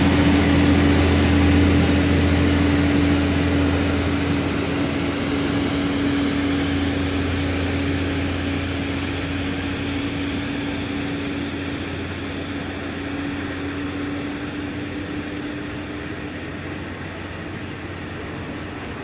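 Heavy haul truck pulling a multi-axle trailer loaded with a mobile crane, its engine making a steady low drone with a held hum that fades gradually as the rig moves off into the distance.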